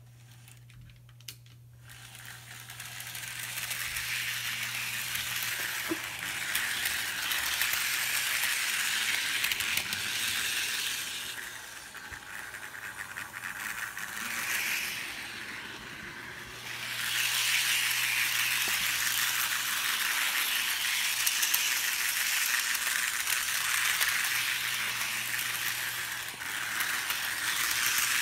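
HO-scale Thomas the Tank Engine model locomotive running along the track with a coal car: a steady rattling whir of its small electric motor, gears and wheels on the rails. It grows louder about two seconds in and dips for a few seconds around the middle.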